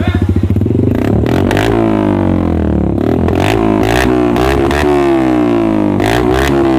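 Motorcycle engine revved repeatedly through an SC Project aluminium aftermarket silencer, its pitch rising and falling with each throttle blip, with several short sharp cracks between revs. It is loud, with little bass.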